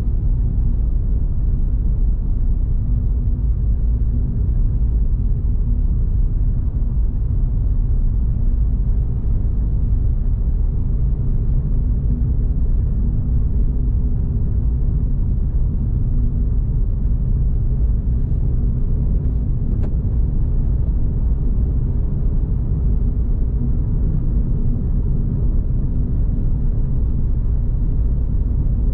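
Suzuki Swift Sport ZC32S's 1.6-litre M16A four-cylinder and road noise heard from inside the car, cruising at a steady engine speed with a constant low rumble and no revving or gear changes.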